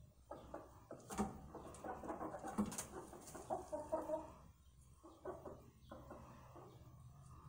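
Hens clucking softly, a run of short clucks for the first few seconds, a brief lull a little past the middle, then a few more clucks. Two sharp clicks stand out among the early clucks.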